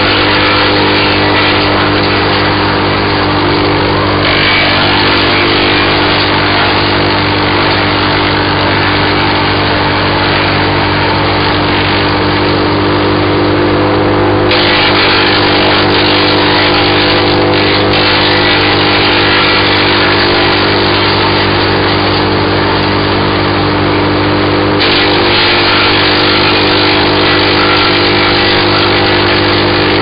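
BearCat CH8993H wood chipper's engine running steadily under load as it chips balsam fir branches. The chipping noise over the engine changes in strength a few times as fresh branches go in.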